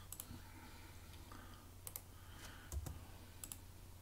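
Several faint, scattered computer mouse clicks over a low steady hum.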